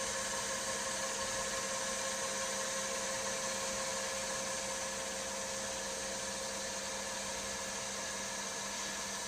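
Tornos Deco 26a Swiss-type CNC lathe running: a steady motor and spindle whir with a hum of several fixed tones over a high hiss, unchanging throughout.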